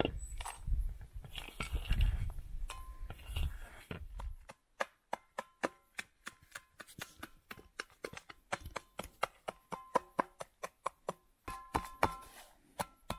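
A knife chopping food in a quick, even run of sharp strokes, about three to four a second, after a few seconds of low rustling handling noise. Plucked-string music comes in near the end.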